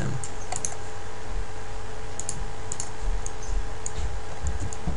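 Scattered light clicks of a computer mouse and keyboard, a few single clicks spread unevenly over several seconds, over a faint steady electrical hum.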